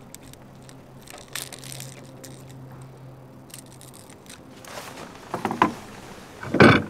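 Small metallic clicks and rattles as pliers work a crankbait's treble hooks free from a smallmouth bass's jaw, with the fish and lure being handled; a louder brief scuffle near the end.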